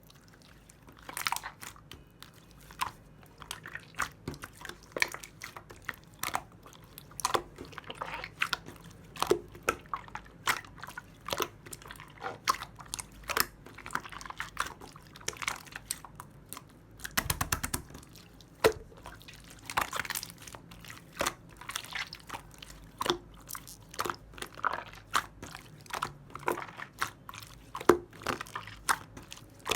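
Hands kneading and pressing a clay-mixed slime, making irregular sticky clicks and pops, with a dense run of clicks about 17 seconds in.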